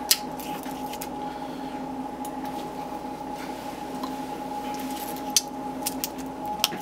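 A few sharp clicks and taps from small parts of a disassembled phone being handled and pressed on a table, over a steady background hum.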